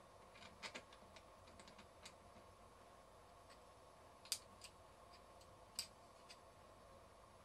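Scattered light metallic clicks and taps of a screw being worked into place by hand on a compressor, with a few sharper single clicks, against a faint steady hum.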